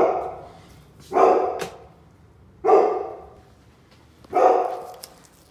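A dog barking repeatedly, one loud bark about every one and a half seconds, each trailing off.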